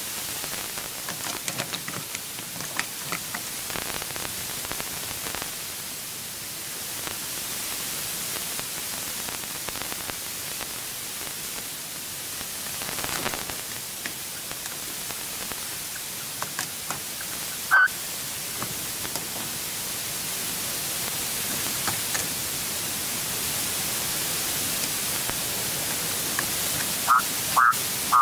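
Steady hiss of noise, with a single sharp click about two-thirds of the way through and a few short, high chirping calls from a red-legged partridge near the end.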